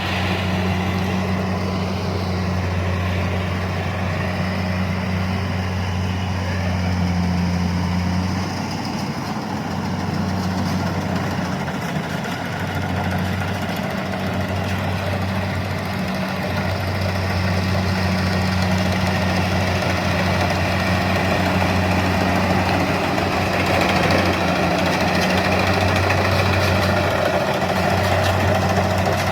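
An engine running steadily: a constant low hum under an even mechanical noise that swells slightly in places.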